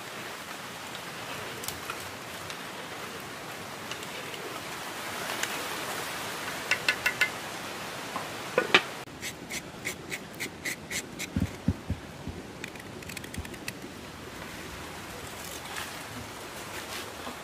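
A steady hiss with a cluster of sharp clinks about seven seconds in, a louder knock, then a quick run of light ticks for a few seconds, from a cooking pot, its lid and utensils being handled.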